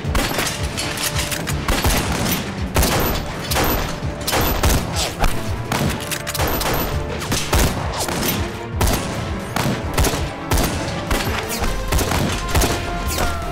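Battle gunfire: many rifle and gun shots in dense, overlapping volleys, several a second at uneven spacing, over a film score.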